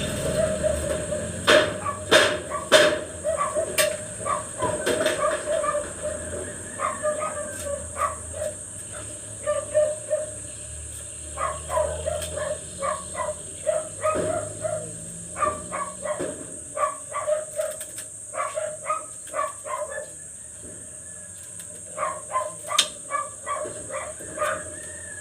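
A dog barking over and over in short clusters, with a few sharp knocks in the first few seconds.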